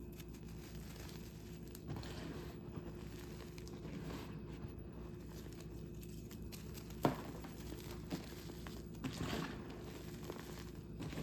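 Blocks of gym chalk crumbling and crunching as they are squeezed and broken, with scattered soft crackles. A single sharp crack about seven seconds in is the loudest moment.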